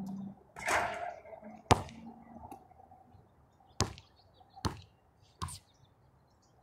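A basketball shot striking the hoop with a short rattle, then the ball bouncing on the court: four sharp bounces, the first and loudest about a second later, the rest spaced about a second apart.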